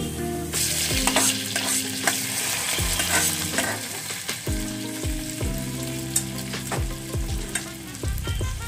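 Baghar of hot oil, browned onions and dried red chillies sizzling as it is poured from the frying pan over the simmered beef trotters, the hiss strongest in the first few seconds, with a spatula scraping and clicking against the pot as it is stirred in.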